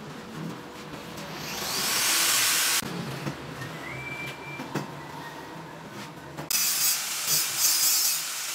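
Stainless steel sheet metal being handled on a workbench, with scraping and rubbing noise in two spells: one builds up and stops abruptly about three seconds in, the other starts sharply about six and a half seconds in.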